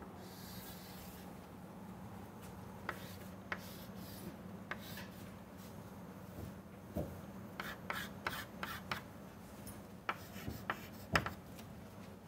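Chalk tapping and scraping on a blackboard as a diagram is drawn, in short separate strokes with quick runs of strokes in the second half, over a steady low room hum.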